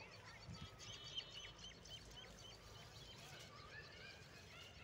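Faint birdsong: many short chirps and calls from several birds, with one brief click about a second in.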